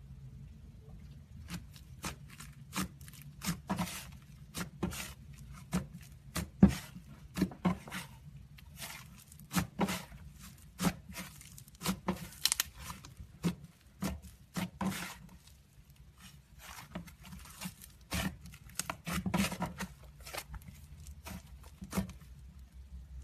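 Fluffy slime being squeezed and stretched by hand, making irregular sticky pops and crackles, at times several a second, easing off briefly about two-thirds of the way through.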